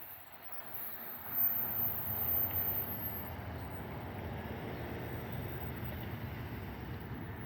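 A train rumbling past on the rails, a steady rolling noise that swells about a second and a half in and then holds.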